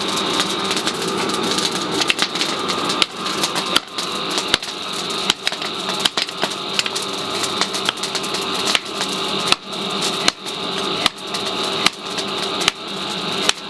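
Blacksmith's hand hammer striking a red-hot steel hoe blade on an anvil, a sharp strike about every three-quarters of a second, over a steady hum.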